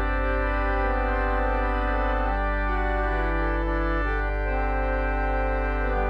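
Background music with no singing: held chords that change about once a second.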